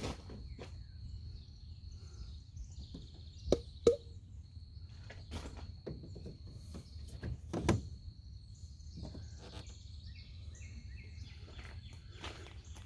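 Sharp knocks of pipe and fittings being handled and set down, the loudest two close together a few seconds in and another about halfway. A steady high-pitched drone and short bird chirps sound behind them.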